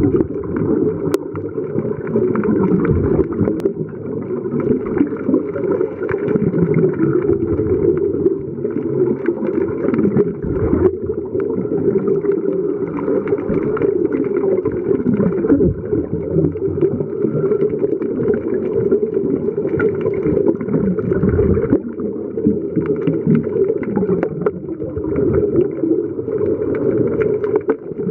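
Muffled, continuous underwater rumble and gurgling as heard by a camera submerged in the sea, with bubbles from the divers' scuba breathing. The sound is dull and steady, with no high sounds in it.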